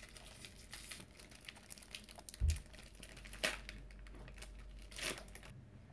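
Foil Yu-Gi-Oh booster pack wrapper crinkling and crackling in the hand as it is opened, with many small clicks. A soft low thump comes midway, and two sharper crinkles come in the second half.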